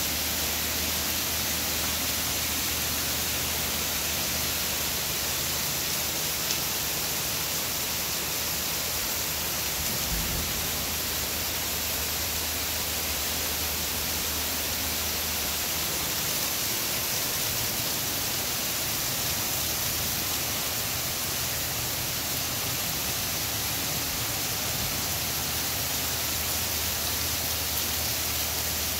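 Heavy rain pouring steadily: a dense, even hiss with no breaks.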